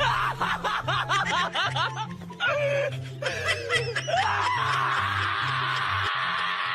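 Background music with a steady bass line and laughter over it; from about four seconds in, a steady hissing noise takes over.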